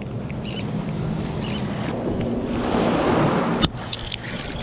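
Shallow water and small surf washing at the shoreline, with wind on the microphone, growing louder about two and a half seconds in. A sharp knock comes just past three and a half seconds, followed by a few lighter clicks.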